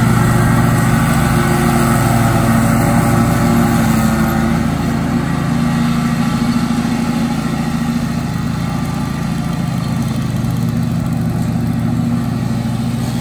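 Engine of a 20-year-old Husqvarna 36-inch belt-drive walk-behind mower running steadily while cutting tall, thick grass, getting a little quieter in the second half as the mower moves away.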